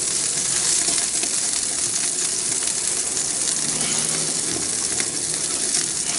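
Beef neck steaks sizzling under a Beefer's glowing overhead gas burner: a steady hiss with many small crackles and pops of spitting fat.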